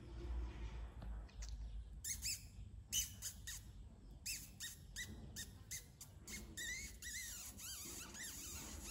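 Young kittens mewing: many short, high-pitched squeaky calls, rising and falling in pitch and overlapping, starting about two seconds in after a low rumble.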